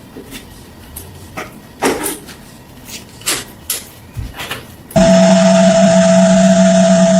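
Several light clicks and knocks from handling in a workshop. About five seconds in, an electric power tool switches on abruptly and runs at a steady pitch.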